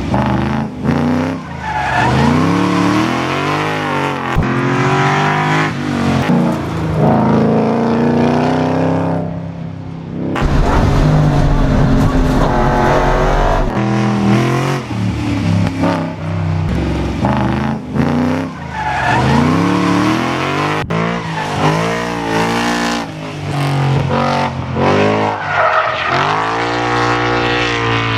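The 2017 Ford Mustang Shelby FP350S race car's 5.2-litre flat-plane-crank V8 is revving hard. Its pitch climbs and falls again and again as it accelerates and lifts off, with a brief lull about nine seconds in.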